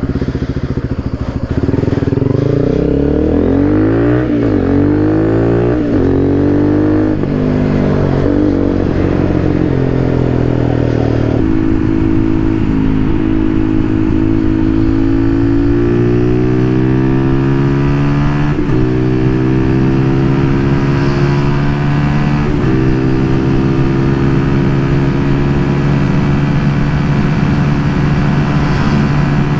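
Zontes Roadster R 125's single-cylinder engine running through an aftermarket exhaust. It rises and falls in pitch at low speed for the first ten seconds or so, then pulls up through the gears: the pitch climbs and drops sharply at each of three upshifts, and it settles into a steady cruise near the end.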